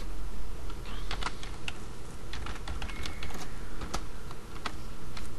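Typing on a computer keyboard: irregular key clicks, several a second, over a low steady hum.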